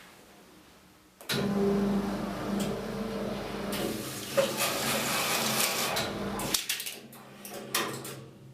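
Huijin ZK400BL banknote strapping machine running a long-band strapping cycle, wrapping PP belt around the note bundle. It starts suddenly about a second in, runs with a steady motor hum and rattle for about five seconds, then stops, followed by a few clicks.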